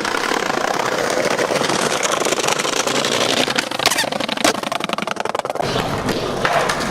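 Skateboard wheels rolling fast over rough, jointed pavement, with a rapid rattle of clicks and a couple of sharper knocks from the board about four seconds in.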